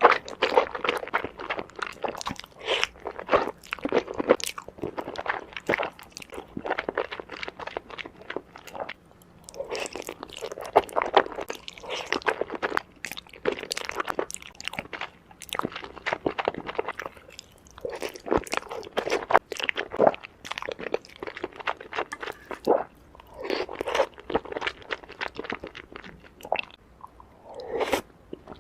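Close-miked chewing of noodles and enoki mushrooms in fried sauce: crisp, crunchy bites and mouth sounds in runs broken by short pauses.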